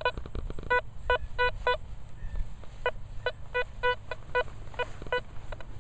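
Nokta Velox One metal detector giving short, choppy beeps of one pitch, about a dozen, in bunches as the coil sweeps back and forth, over a faint low rumble. These short, choppy signals are read as can slaw: shredded aluminium can.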